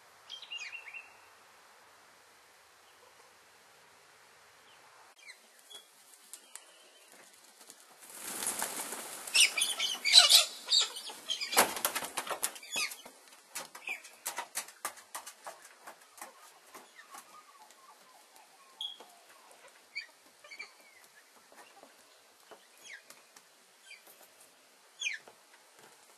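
Wings flapping in bursts as a hawk grapples with a bronzewing pigeon on grass, loudest and densest for a few seconds in the middle, then scattered flaps and rustles. A few short, high bird calls break in, one about half a second in and others near the end.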